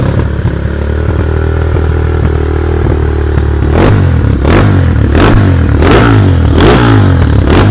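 TR250 motorcycle engine, just fired up for the first time after tuning, idling steadily. About four seconds in, the throttle is blipped repeatedly, a short rev about every 0.7 s.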